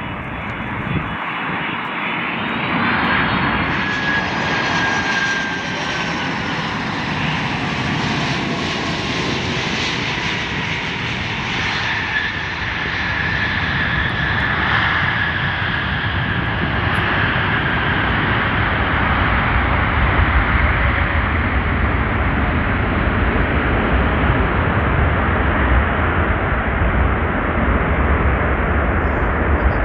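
Boeing 747-400 freighter's four turbofan jet engines during landing: a loud jet noise with high whining tones that glide in pitch as the aircraft passes. In the second half the sound turns to a deeper rumble that grows louder.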